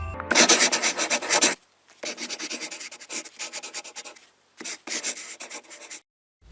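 Rapid scratching or rubbing strokes, many per second, in three bursts with short silent gaps between them.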